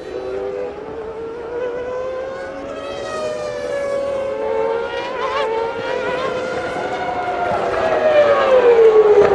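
Formula One cars' engines screaming at high revs, several engine notes overlapping and sliding in pitch, growing louder with a falling pitch near the end as a car passes.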